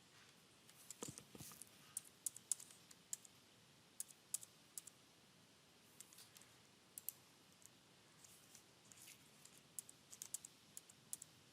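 Scattered sharp clicks of a computer mouse and keyboard, some in quick runs of two to four, over a quiet room.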